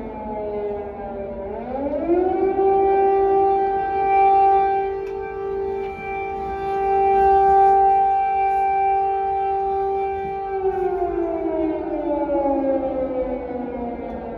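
Air raid siren wailing: its pitch falls, rises steeply about two seconds in, holds steady, then winds down from about ten seconds in. It is the warning of a possible drone or missile attack.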